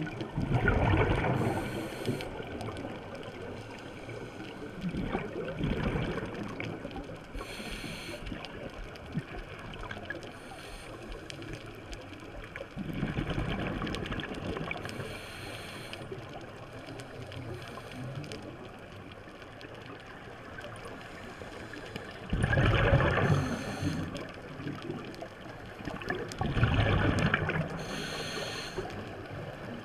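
Scuba diver breathing through a regulator underwater: a short hiss on each inhale and a gurgling rush of bubbles on each exhale. There are about five slow breaths, several seconds apart.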